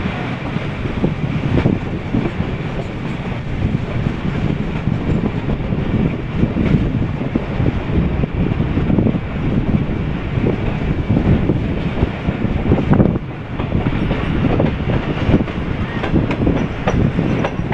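Pak Business Express passenger train running at speed, heard from the open doorway of a coach: a steady rumble of wheels on the rails with irregular clacks as they pass over rail joints.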